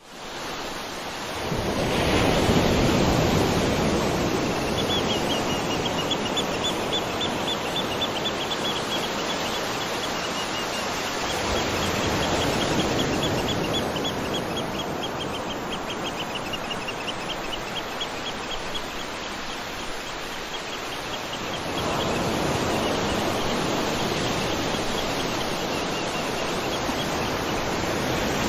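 Waterfall rushing steadily, fading in from silence over the first couple of seconds and swelling a few times. A fast run of high chirps sounds over the water for much of the middle.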